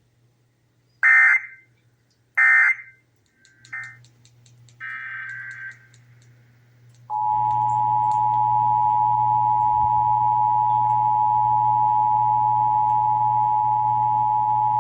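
Emergency Alert System broadcast tones. First come short screeching digital data bursts, two loud and then fainter ones, in the first six seconds. About seven seconds in, the EAS two-tone attention signal starts, a steady dual tone held for about eight seconds, with a low hum underneath.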